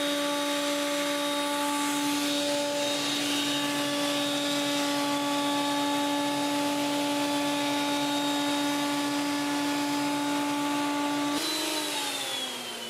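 Benchtop thickness planer running with a steady hum as wooden planks feed through its cutterhead, with dust extraction pulling chips through its hose. Near the end the motor is switched off and winds down, falling in pitch.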